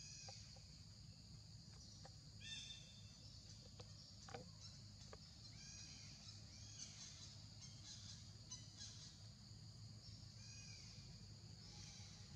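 Faint outdoor ambience: a steady high insect drone, with short high arched calls from a bird or animal recurring several times.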